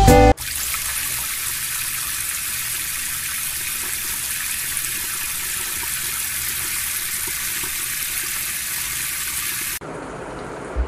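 Bathroom sink tap running, a steady stream of water splashing into the basin. Near the end it drops abruptly to a fainter hiss.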